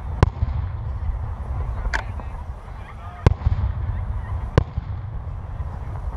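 Distant fireworks bursting: four sharp bangs spaced roughly a second and a half apart, over a steady low rumble.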